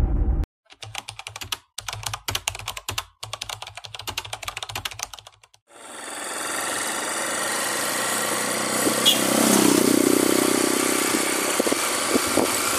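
Rapid computer-keyboard typing clicks for about five seconds, the typing sound effect for on-screen text. About six seconds in, a vehicle's engine starts to be heard running steadily as it drives along a dirt road, with wind noise.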